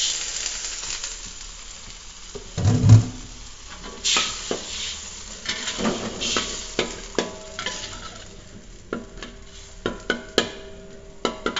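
Chilli-tomato spice paste sizzling in a hot aluminium wok as water is added, the hiss dying down over the first couple of seconds. A metal spatula then scrapes and clinks against the wok as the paste is stirred, with a heavy thump about three seconds in.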